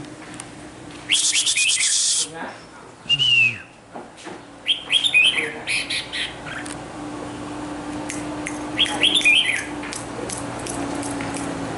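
A bird calling in three bursts of rapid, harsh chirps, with a single falling call between the first two bursts.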